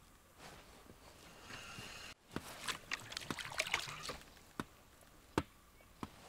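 Small handling noises of fishing tackle as a lure is swapped for a smaller one: a short rustling hiss, then a quick run of small clicks and taps, then a few single sharp clicks.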